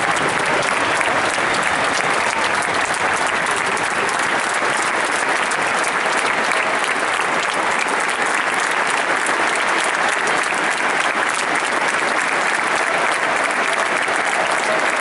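Large stadium crowd applauding, a dense, steady mass of clapping from thousands of hands.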